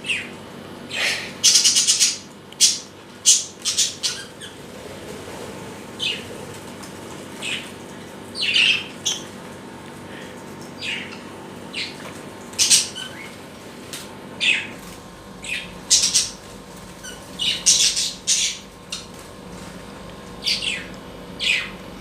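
Pet birds squawking and chirping: a string of short, sharp, high-pitched calls, irregularly spaced about one to two a second, some in quick clusters.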